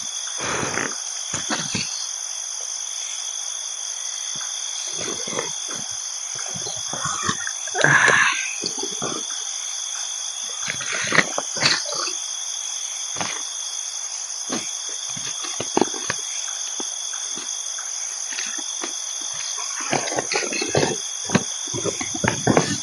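Night insect chorus, a steady high-pitched trilling that never lets up. Irregular rustles and snaps sound over it, the loudest about eight seconds in.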